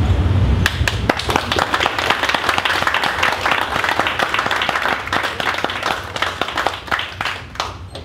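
Audience applauding: the clapping starts about a second in and dies away near the end.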